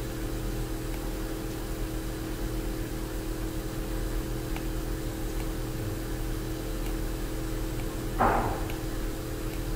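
Steady background hum over a hiss, with several steady tones in it. There is a short noisy rustle about eight seconds in.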